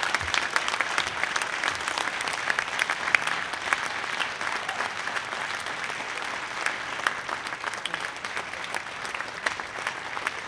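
Audience applauding, a steady round of many hands clapping that eases off slightly toward the end.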